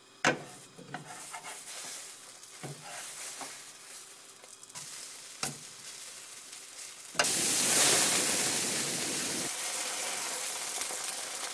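Pancake batter frying in a hot frying pan: a few knocks and scrapes of a utensil against the pan, then a sudden loud sizzle about seven seconds in that eases off but keeps going.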